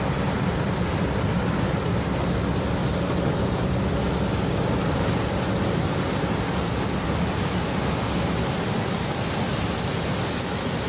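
John Deere 9550 combine harvesting corn, running as a steady, unbroken wash of machine noise with a low hum beneath it.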